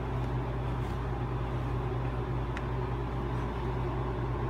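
A steady low mechanical hum, with two faint clicks.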